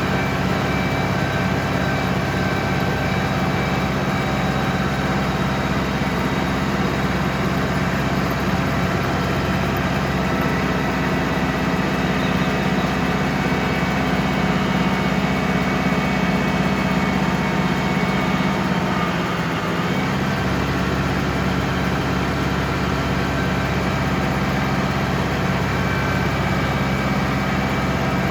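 Ford 6610 tractor's diesel engine running steadily, its note dipping briefly about two-thirds of the way through before settling back.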